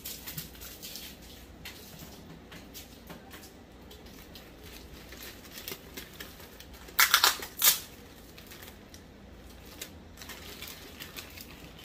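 Clear plastic wrapping sealed with shipping tape around a stack of comic books crinkling as fingers pick at it, with a quick burst of loud ripping about seven seconds in as the tape and plastic tear.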